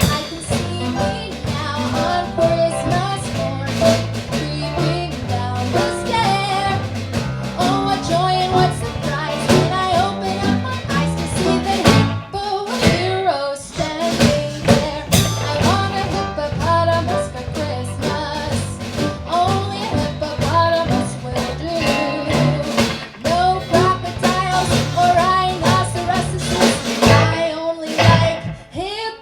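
A live band playing an upbeat Christmas novelty song, with singing, walking bass, guitar and drum kit.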